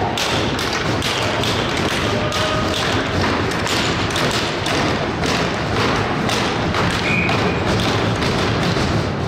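Ice hockey game sounds in an arena: a steady run of thuds and taps, about two a second, over a constant crowd-and-rink din.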